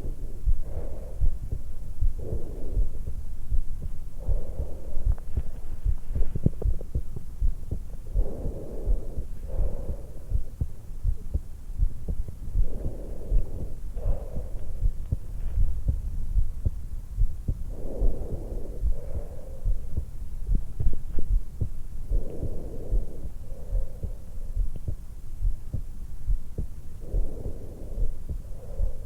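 Her own heartbeat and breathing picked up through a stethoscope microphone pressed to the hollow at the base of the throat, at rest just after waking. A steady run of low heartbeats continues throughout, with a breath in and out about every four to five seconds.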